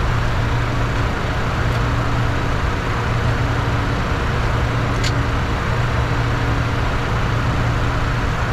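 Steady flight-deck noise of a Bombardier Challenger 604 business jet in the climb: a constant low drone from its turbofan engines and the rush of air over the cockpit. A small click comes about five seconds in.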